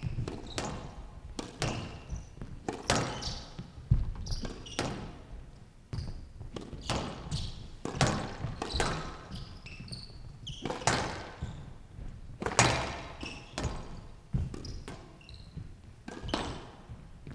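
Squash rally: the ball cracks off rackets and walls in a quick, irregular run of sharp impacts that ring in a large hall, with short high squeaks from the players' shoes on the court floor between the shots.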